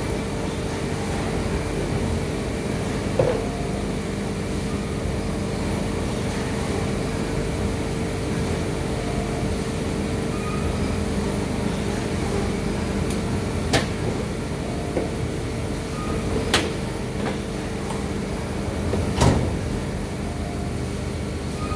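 Steady hum of a plastic injection moulding machine running, with a few sharp clicks and knocks. The loudest knock comes near the end, as the machine's sliding safety guard is shut.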